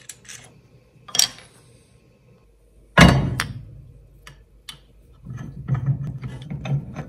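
Metal parts being handled and set in a bench vise: scattered sharp clicks, one loud knock about three seconds in, then a run of quick rattling clicks near the end.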